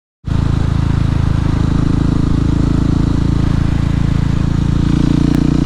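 Husqvarna 701 supermoto's single-cylinder engine running steadily at an even, low speed, starting abruptly a moment in, without revving.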